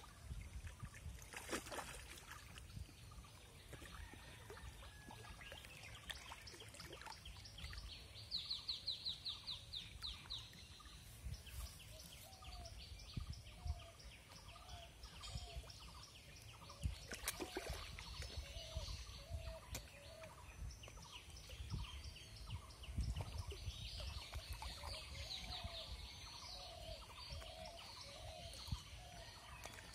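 Outdoor birdsong: strings of short repeated calls and rapid ticking trills, twice building into a denser run, over a steady low rumble. A few sharp knocks or splashes stand out, one near the start and one about halfway through.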